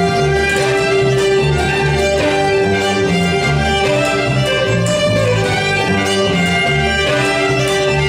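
Two fiddles playing a folk tune together over a plucked upright bass that moves from note to note in a steady rhythm.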